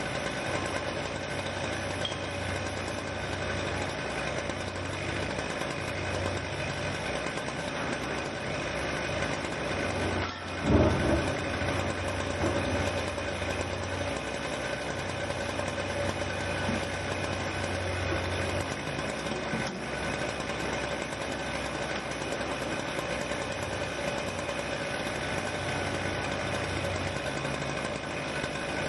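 Engines of demolition excavators running steadily with a constant hum. There is one loud thump about ten seconds in.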